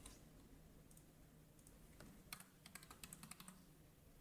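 Faint typing on a computer keyboard: a quick run of keystrokes starting about two seconds in, as a password is entered.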